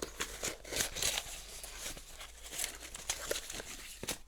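Product packaging being opened by hand: irregular crinkling, rustling and small tearing sounds with light clicks.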